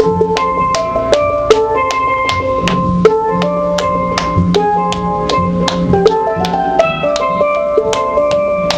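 Steel pan music: a fast run of bright, ringing struck notes over a steady percussive beat.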